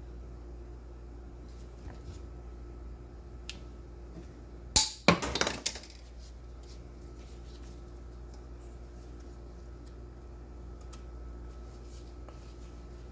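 A brief, loud metallic clatter of hand tools or pipe fittings being handled about five seconds in, over a steady low hum.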